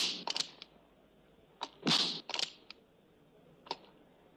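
Open-hand slaps to a man's face, as film sound effects: a loud smack at the start and another about two seconds in, each followed by two or three quick lighter smacks, and one light smack near the end.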